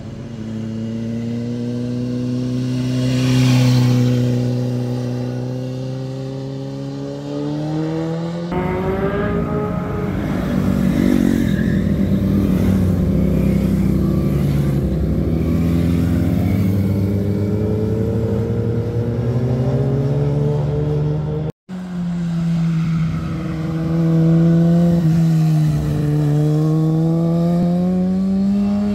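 Motorcycles riding past through a tight bend, their engines dropping in pitch as they pass and climbing again as they accelerate out of the corner. The sound changes abruptly twice, once with a brief dropout about two-thirds of the way through.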